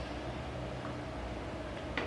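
Steady low hum with a light hiss, the room's background. A faint click comes near the end.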